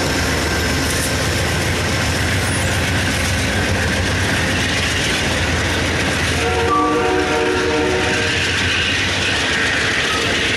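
Amtrak passenger train passing close at speed, its wheels clattering steadily over the rails. About two-thirds of the way through, the train's horn starts sounding a long, steady chord.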